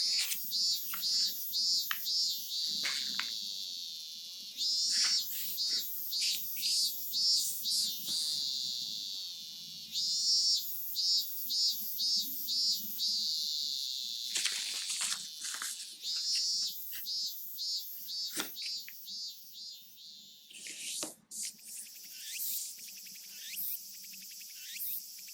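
Japanese summer cicadas singing: a steady high buzz with loud rhythmic pulsed calls, about three to four pulses a second, in runs of a few seconds. About two-thirds of the way through the sound drops out abruptly, then continues with a different, thinner pattern of falling buzzy notes.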